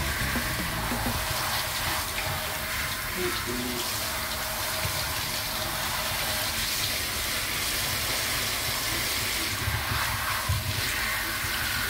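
Water running steadily from a tap or sprayer into a bathtub while a dog is rinsed.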